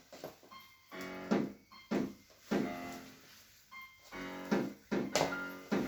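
Piano-like keyboard music, with notes and chords struck in a steady repeating rhythm.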